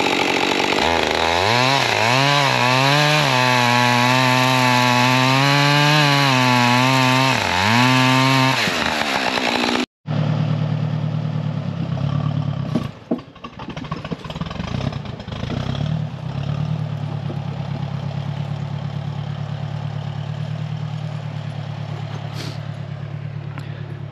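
Husqvarna chainsaw running at high revs for about nine seconds, its pitch dipping and wavering as it cuts through wood. After an abrupt cut, an old Ford tractor engine runs steadily at a low, even pitch, with a few knocks near the start.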